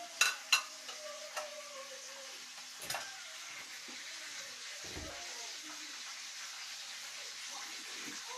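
Kitchen handling noises over a steady hiss: two sharp clicks just after the start, another click about three seconds in, and a dull knock about five seconds in.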